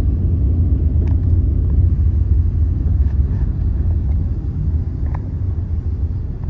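Low, steady rumble of a car driving slowly, heard from inside the cabin, with a few faint knocks.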